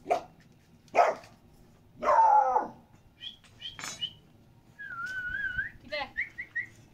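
A dog barking: two sharp barks about a second apart, then a longer drawn-out bark. After it come short high chirps, a warbling whistle and another run of quick chirps.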